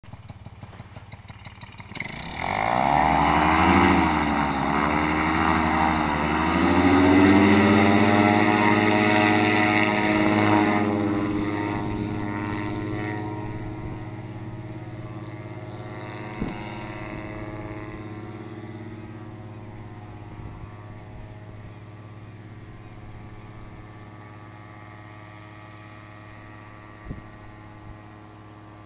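Paramotor engine and propeller running low at first, then opened up hard about two seconds in for the takeoff run, its pitch dipping and rising. After about ten seconds it loses its high edge and the drone fades steadily as the paramotor climbs away.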